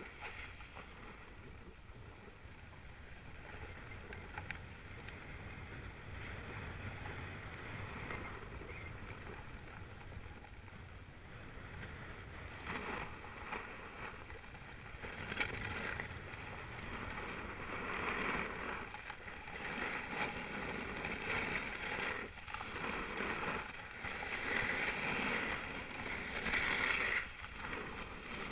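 Edges sliding and scraping over packed snow on a downhill run: a steady hiss that grows louder about halfway through and swells every second or two with the turns, over a low rumble of wind on the microphone.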